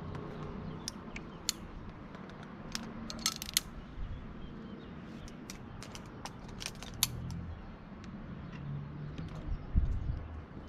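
Metal climbing hardware, carabiners and quickdraws on a climber's harness, clinking and jingling in sharp scattered clicks. The clicks are thickest about three seconds in and again around seven seconds. A low thud comes near the end.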